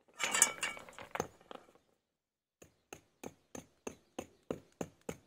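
Mason's hammer tapping calçada cobblestones down into a sand-cement bed: even, sharp taps about three a second from about two and a half seconds in. Before that, a second or so of stones clinking and scraping as they are set.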